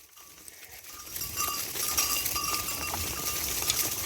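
A flock of sheep on the move, with hooves and bodies brushing through vegetation rising about a second in.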